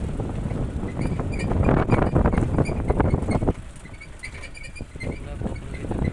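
Open-top safari jeep driving on a rough track: engine running under heavy wind noise on the microphone. It gets louder and choppier from about a second and a half in, then drops off sharply about three and a half seconds in.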